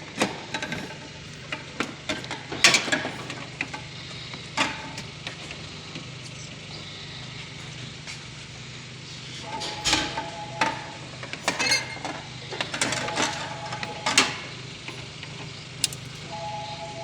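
Scattered metal clinks and knocks, like tools and fittings being handled, over the steady low hum of an idling car engine. A faint two-note tone sounds briefly three times in the second half.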